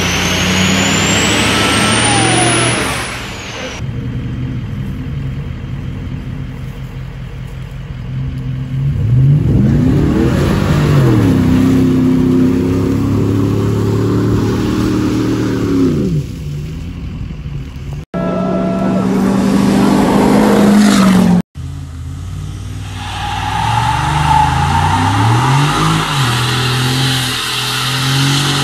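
Pickup truck engines revving hard across a run of short clips, pitch climbing and falling again several times, with a high rising whine in the first few seconds. Near the end a pickup does a burnout, tyres spinning under the running engine.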